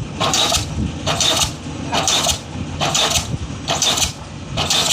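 Diesel pile hammer driving a spun concrete pile: a steady rhythm of loud blows, about six of them a little under a second apart, over the rumble of the hammer.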